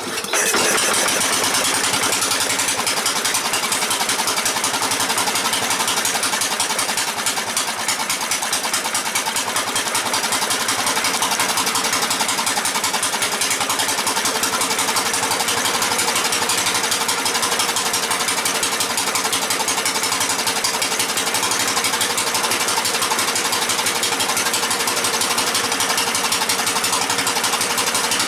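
Cast-iron Briggs & Stratton engine firing up right at the start and then running steadily and loudly, with a fast even exhaust beat. The owner says the muffler needs fixing.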